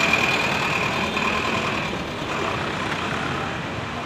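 School bus driving past close by, its engine and road noise fading as it pulls away, with a steady high whine in the first couple of seconds.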